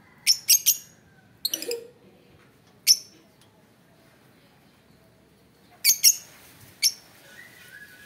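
Fischer's lovebirds calling: short, sharp, high-pitched chirps in little clusters. A quick run of three comes first, then a short burst, a single chirp, and after a pause a pair and one last chirp.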